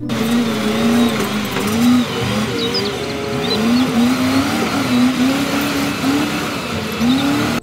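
Caterpillar 988 wheel loader's diesel engine revving up and down repeatedly as it carries a load, over a steady noise from the working machine.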